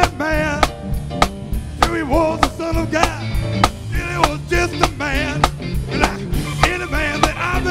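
Live band playing: a man singing with vibrato over keyboards, electric guitars and a drum kit keeping a steady beat.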